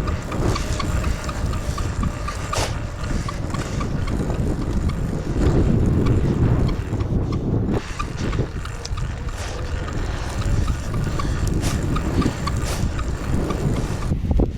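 Steady low rumble with wind buffeting the microphone, swelling louder about halfway through, and a fast run of high pips in the first couple of seconds.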